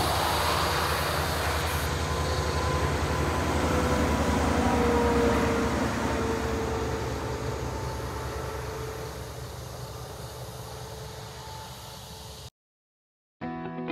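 B-double semi-trailer truck passing on a highway: a steady diesel engine drone with tyre and road noise, building to its loudest about five seconds in, then fading away. The sound cuts out about twelve seconds in, and strummed guitar music starts just before the end.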